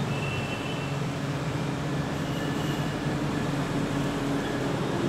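Steady mechanical hum with an even noise over it, like machinery running, with no distinct knocks or strikes.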